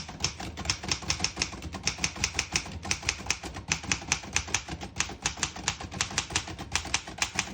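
Typing a sentence on a 1923 Remington Portable Model 1 manual typewriter: a quick, steady run of typebar strikes on the platen, several a second, with the keys working smoothly and none skipping or sticking.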